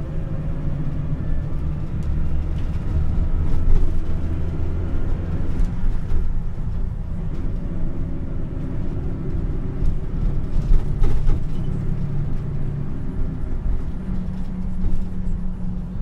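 A taxi heard from inside its cabin while driving: steady engine and road rumble, with the engine note shifting up and down as the car's speed changes.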